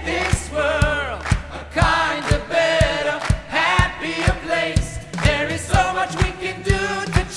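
Background music: a song with singing over a steady beat of about two drum strokes a second.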